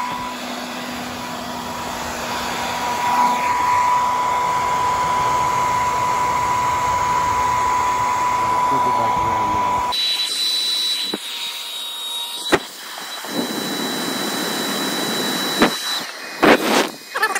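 Conair handheld hair dryer running on hot, a steady blowing whoosh with a whine, aimed at the airbox's heat flap. About ten seconds in, the sound drops abruptly to a quieter, thinner hiss, and a few sharp clicks follow near the end.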